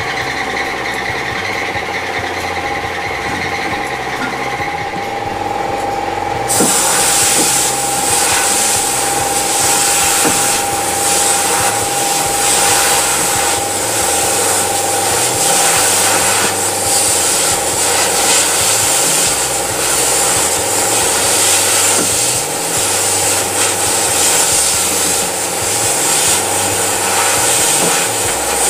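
Sandblast cabinet's air blast gun spraying abrasive media, its media fed by a pulsed venturi injector: a steady rushing hiss over a steady tone, which jumps sharply louder and brighter about six seconds in and stays there.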